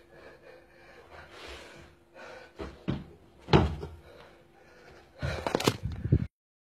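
Thuds of feet landing on a rug-covered floor as a man jumps and kicks, the loudest thud about three and a half seconds in. Near the end there is about a second of close knocking and rattling as the recording phone is picked up, and then the sound cuts off.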